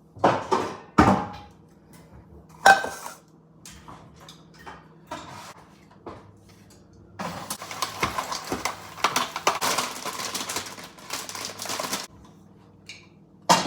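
Kitchen clatter of pans and dishes: three sharp knocks in the first few seconds, then about five seconds of dense crackling noise that cuts off suddenly.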